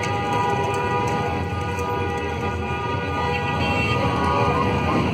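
A long, steady chord of several held tones sounding together, horn-like, stopping suddenly at the end.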